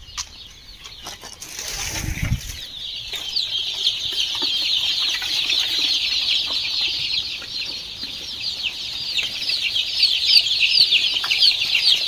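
Dense, high-pitched peeping of a large brood of young hatchery chicks and ducklings crowded in a brooder, many overlapping short chirps. It starts about two to three seconds in and holds steady to the end.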